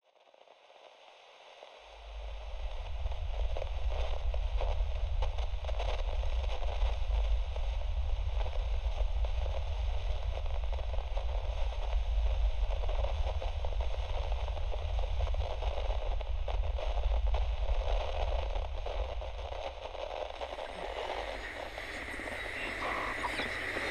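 Crackling noise over a heavy, steady low rumble, fading in over the first two seconds. The rumble dies away about twenty seconds in, leaving the crackle and a thin high hiss.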